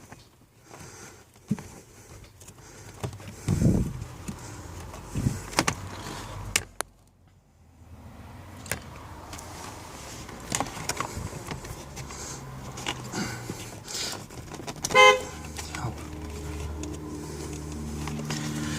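Scattered clicks and knocks of plastic heater-box parts being handled, then a short, loud horn-like beep, followed by a steady low hum.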